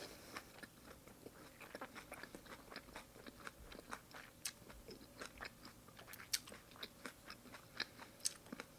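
A person chewing a mouthful of sashimi at close range: quiet, irregular wet clicks and small crunches.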